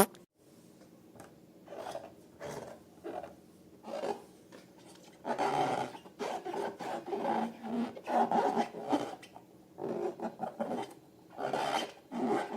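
Inflated long balloons being squeezed and rubbed, giving irregular bursts of rubbery squeaking and rubbing that grow busier about five seconds in. A sharp snap comes right at the start.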